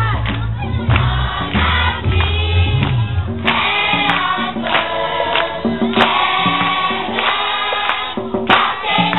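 A group of young singers sing a song together in chorus. A low bass part sounds under the first three seconds or so, then drops out, leaving the voices.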